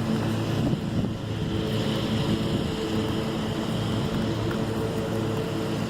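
A steady low mechanical drone with a constant hum.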